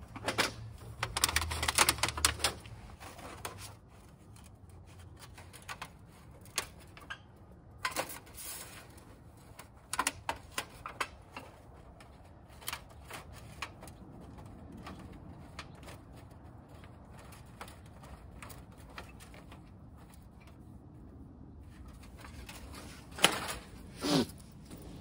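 Metal stovepipe sections for a tent wood stove being slid and twisted together, with rapid clinking and scraping at first and then scattered clicks as the spark-arrestor cap is fitted. Two louder knocks come near the end.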